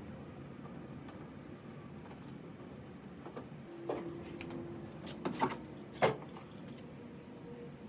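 A few sharp clicks and knocks of small metal parts as a car spotlight's handle is fitted and adjusted. They come in a cluster from about four to six seconds in, the last the loudest, over a steady low background noise.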